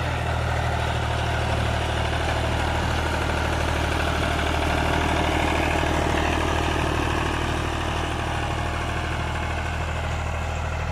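Ghazi tractor's diesel engine running steadily while pulling a disc harrow, with little strain from the load.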